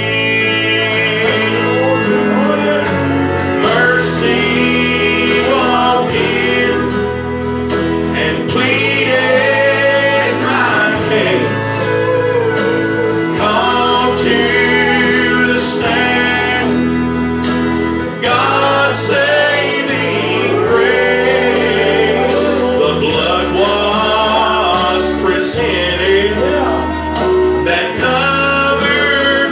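A man singing a country-gospel song into a handheld microphone, over instrumental accompaniment with a steady bass line that moves note to note every second or two.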